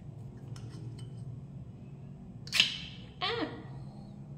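Ring-pull can of chipotle peppers being opened by hand: light clicks as the tab is lifted, a sharp pop about two and a half seconds in as the seal breaks, then a short falling squeal.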